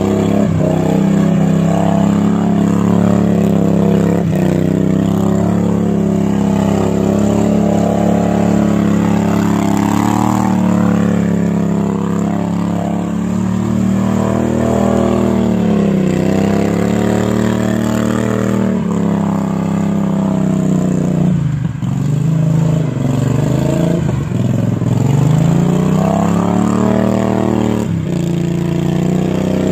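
Riding lawnmower's V-twin engine running at high revs. Its pitch holds steady, then dips and climbs back several times, with the deepest drops in the second half.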